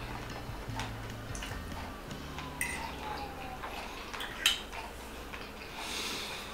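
Metal fork clinking and scraping against a ceramic plate of pasta, a few sharp clinks, with quiet chewing between.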